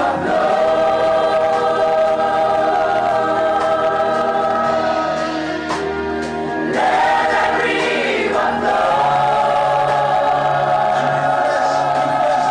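A group of worship singers singing a slow gospel song in long held notes: one sustained phrase, then a new one rising in about seven seconds in and held again.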